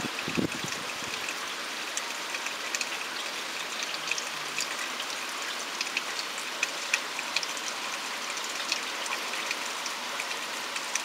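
Steady rain falling, a constant hiss with many separate drops ticking throughout.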